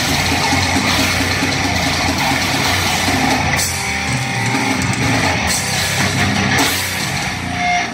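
Heavy metal band playing live: distorted electric guitars and bass over a drum kit, with a few cymbal crashes in the second half.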